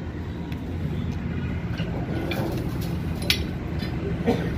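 A steady low mechanical hum with a few short clicks, the loudest about three seconds in.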